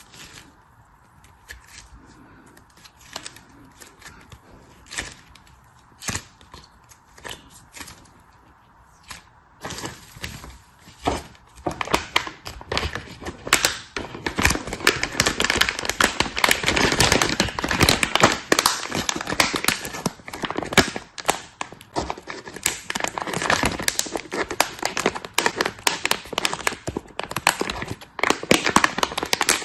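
Plastic packaging being unwrapped by hand: scattered clicks and light handling at first, then from about ten seconds in a dense, continuous crinkling and tearing.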